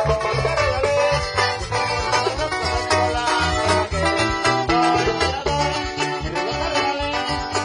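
Upbeat Latin dance music played by a band, with a pulsing bass line and plucked-string melody at a steady beat.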